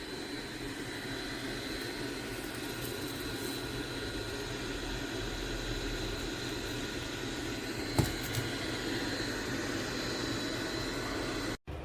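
Steady mechanical whir with a thin high whine over a low hum, broken by a single sharp click about eight seconds in; it cuts off abruptly just before the end.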